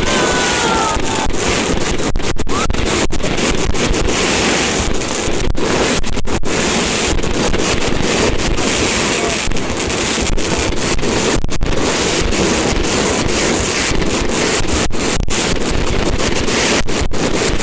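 Dense fireworks finale barrage, the bursts running together into one continuous loud din.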